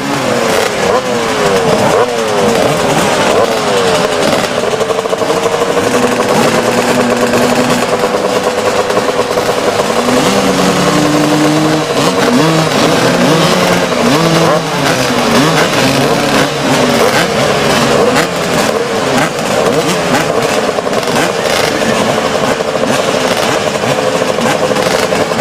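A line of motocross bikes revving at the start gate. Many engines rise and fall over one another while one holds a steady note for several seconds at a time.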